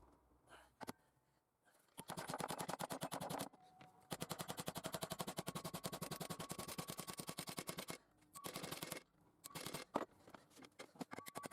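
Fast, even rattle of sharp mechanical clicks in two bursts, the first about a second and a half long and the second about four seconds, followed by shorter bursts and scattered clicks near the end.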